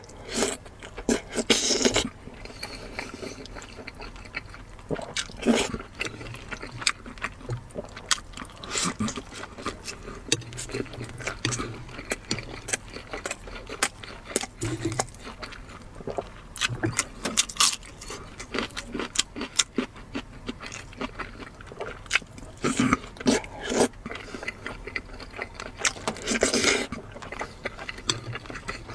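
A person eating close to the microphone: irregular wet chewing, biting and mouth smacks, with short sharp clicks.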